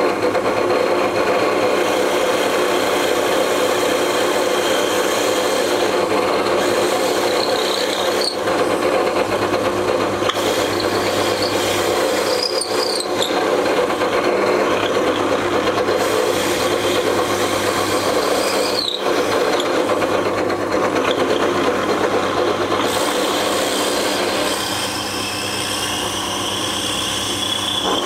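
An old benchtop drill press running steadily, its 9 mm bit boring down into a laminated wooden cylinder: a motor hum under the scraping of the bit cutting wood, with a few brief high squeaks. It eases a little about three quarters of the way through.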